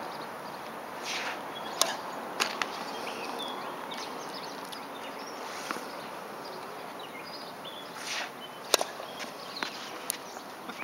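Tennis rally: a handful of sharp pops from rackets striking the ball and the ball bouncing on the court, spaced a second or more apart, with the loudest about three-quarters of the way in, over steady outdoor background noise.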